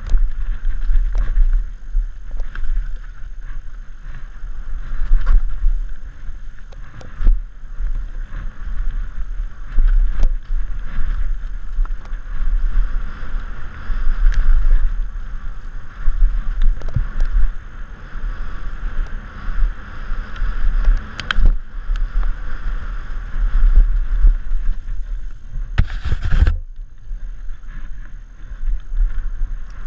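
Downhill mountain bike ridden fast down a dirt trail, heard from a helmet camera: wind buffeting on the microphone over a steady rush of tyres, with the bike rattling and knocking over roots and rocks. A loud, harsh clatter about 26 seconds in.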